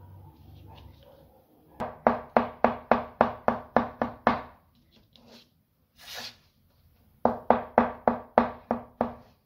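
Chef's knife dicing peeled carrots on a cutting board: two runs of quick, even chops, about four a second, with a brief swish between them.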